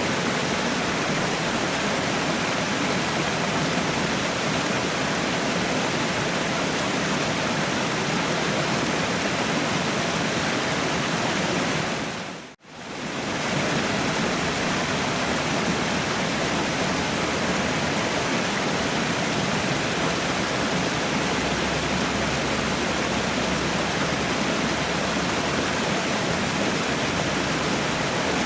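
Waterfall rushing in a steady, even roar of falling water. About halfway through, the sound briefly fades out to near silence and comes straight back, as at a splice in a looped recording.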